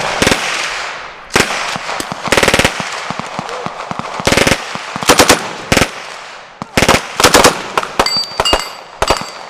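Browning Automatic Rifle firing in short bursts of automatic fire and a few single shots, with pauses between the bursts.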